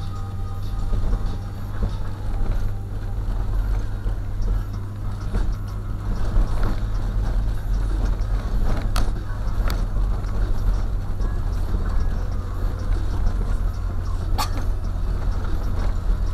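Car interior driving noise picked up by a dashcam: a steady low engine and tyre drone, with a few sharp knocks or rattles as the car rolls over a cracked, patched road.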